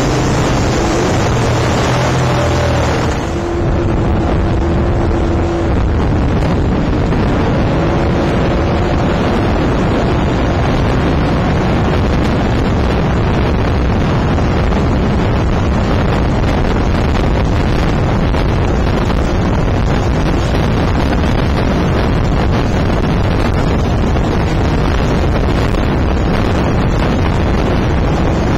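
Loud, steady rush of wind buffeting the microphone in a Sea King helicopter's rotor downwash, mixed with the helicopter's engine and rotor noise and the inflatable lifeboat's outboard motor running.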